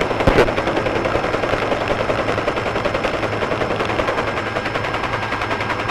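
Helicopter rotor and engine noise heard from inside the aircraft through the crew intercom: a steady, fast, even chop with a low hum beneath it.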